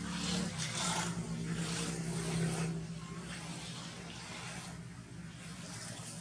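A steady low engine hum, louder over the first three seconds and then easing off.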